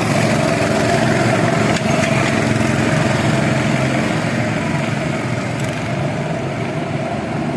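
Small engines of several go-karts running on a track, the nearest kart passing and pulling away so the sound eases slightly.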